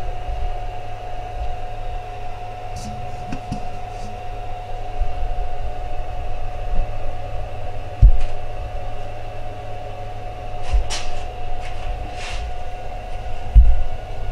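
Milling machine running with a steady whine and low rumble while a 45-degree chamfer cutter bevels the edge of a welded steel part, with scattered ticks and a few low thumps, the loudest about eight seconds in.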